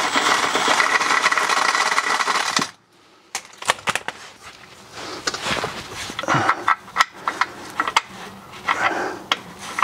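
A cordless power wrench running for about two and a half seconds as it undoes the last gearbox bellhousing bolt, then stopping suddenly. After it come light metal clicks and clinks of the tool, socket and loosened bolt being handled.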